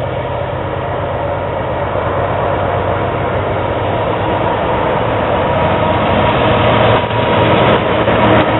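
Several BNSF diesel-electric locomotives heading a freight train, their engines droning as they approach, growing steadily louder until the lead unit passes close near the end.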